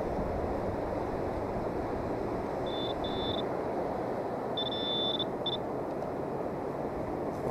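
High-pitched electronic beeps from a metal detector sounding on a coin buried in beach sand. Two short beeps come about three seconds in, then a longer beep and a quick one around five seconds, over a steady background rush.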